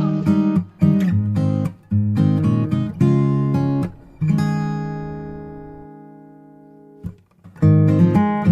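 Background music on acoustic guitar: picked notes, then a chord left to ring and fade for a few seconds before the playing starts again near the end.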